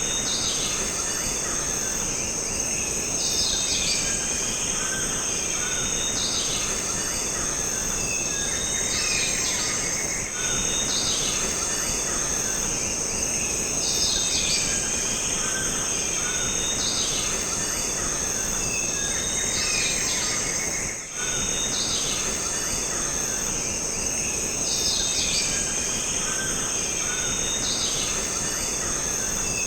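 Jungle ambience: a steady, high-pitched insect drone with birds calling and chirping over it at regular intervals.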